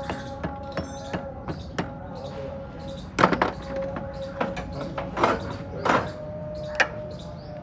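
Hand tools clicking and tapping on a CV joint and its rubber boot, the drive shaft clamped in a bench vise. Irregular sharp metal clicks, with a few louder knocks about three, five and six seconds in.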